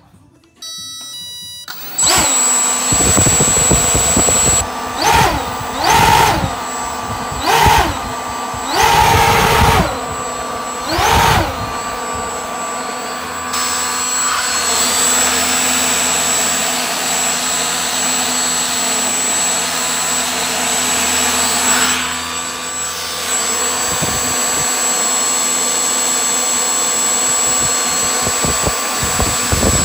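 Brushless motor of a homemade RC airboat spinning its ducted propeller: a high steady whine over rushing air. It revs up and down in about five short bursts, then runs steadily, dipping briefly about two-thirds of the way in.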